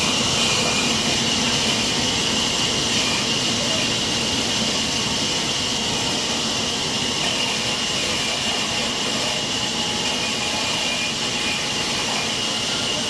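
Sawmill saw running steadily: a continuous high whine over a broad hiss, unchanging throughout.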